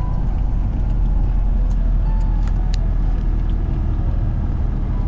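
Loaded tractor-trailer driving on the highway: a steady low engine and road rumble, with a few brief light clicks or rattles.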